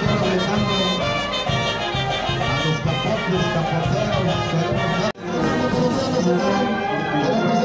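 Brass band music, with trumpets and trombones over a pulsing bass. The sound drops out abruptly for a moment about five seconds in, then comes back.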